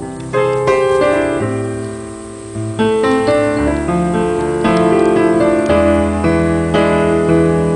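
Background piano music: single notes and chords struck one after another over held low bass notes.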